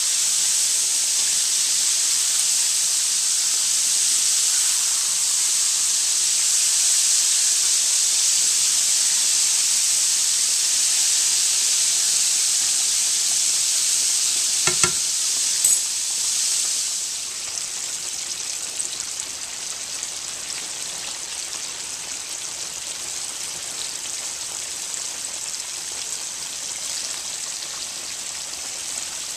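Flour-dredged pork chops frying in hot canola oil in a skillet: a steady high sizzle. Two sharp clicks come about halfway through, after which the sizzle settles somewhat quieter.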